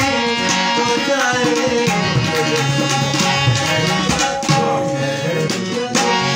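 Tabla accompaniment with sliding bass-drum tones under a harmonium's held chords, while a man sings a ghazal.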